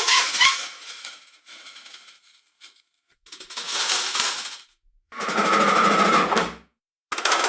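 Crash cart wheels rolling with a rattle, in several short separate pushes of about a second and a half each; one of them carries a steady whine.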